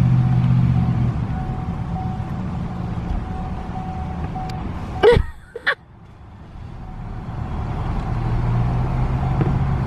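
Steady low road rumble inside a moving car's cabin. About five seconds in there is a brief sharp sound, then the rumble drops away suddenly and slowly builds back up.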